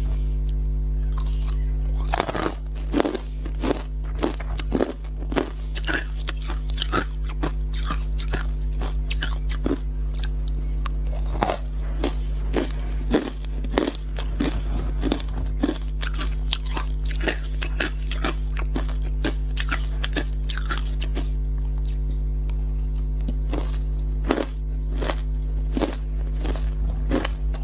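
Crushed ice coated in matcha powder being bitten and chewed, with dense, crisp crunches in irregular runs.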